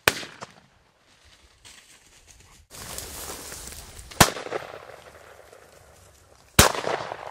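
Three shotgun shots at flushing bobwhite quail: one at the very start, a second about four seconds in and a third about two and a half seconds later, each with a short echoing tail. A rush of noise rises suddenly just before the second shot.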